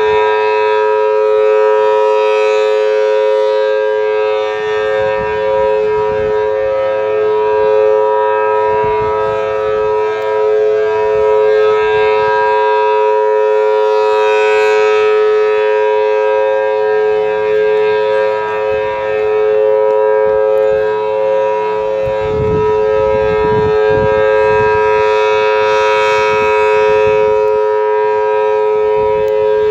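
Federal Signal Thunderbolt 1000T outdoor warning siren sounding a steady alert tone: a loud held chord of two close tones that swells and fades about every twelve seconds as the rotating head sweeps past. Low rumbling joins in the last several seconds.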